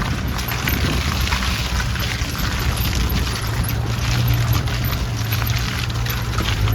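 Maruti Gypsy's engine running steadily off-road, a constant low hum under a dense haze of irregular crackling from the vehicle working over rough ground.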